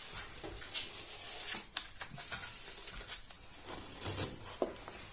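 Self-adhesive scrim tape being unrolled and pressed along a plasterboard joint: a rustling, tearing crackle with scattered clicks, loudest about four seconds in.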